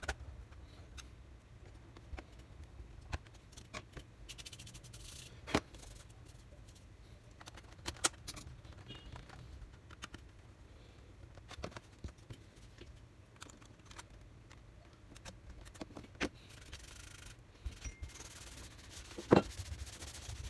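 Scattered small clicks, taps and rubbing from laptop parts and tools being handled, with a louder knock near the end and short stretches of hiss.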